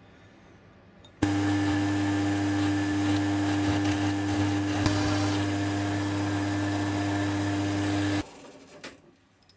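Round column milling machine running with a steady motor hum as its twist drill bores into a metal part held in the vise. It starts suddenly about a second in and stops sharply near the end.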